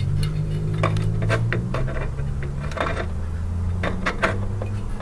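Light metallic clicks and clatter of a CPU heatsink being handled and set down onto the processor, irregular taps over a low steady hum.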